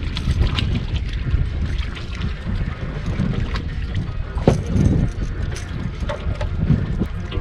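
Wind buffeting the microphone on an open boat, a fluctuating low rumble, with scattered small knocks and clicks, the sharpest about halfway through.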